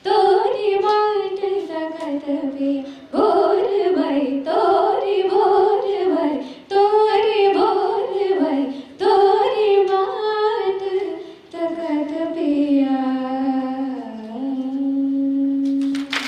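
A woman singing a Hindustani classical bandish in Raag Gujari Todi, unaccompanied: ornamented phrases that glide up and down, broken by short breaths, ending on one long held low note near the end.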